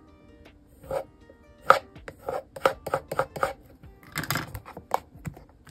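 Paper and cardboard being handled and worked in a run of crisp irregular clicks and short rustles, over soft background music.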